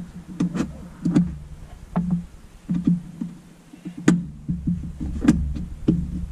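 Irregular sharp plastic clicks and knocks as a trim-tab puller works at the push-in plastic clips of the trunk lining, which are not coming out easily. A steady low hum runs underneath.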